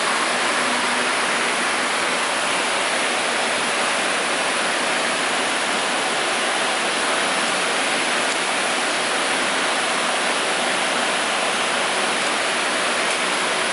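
Steady, even rushing background noise of a machine workshop, with no strokes, rhythm or change.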